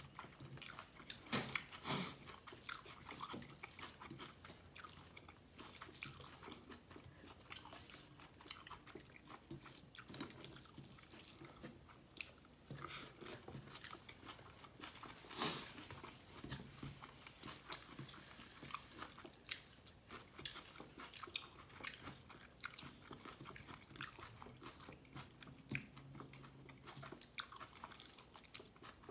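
A person chewing a mouthful of beef tehari and egg korma close to the microphone: a steady run of wet mouth clicks and smacks, with two louder crunches, one about two seconds in and one about halfway through.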